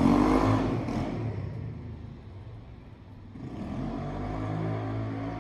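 Motor vehicles passing: one loud pass right at the start that fades over about two seconds, then another engine swelling in about three and a half seconds in.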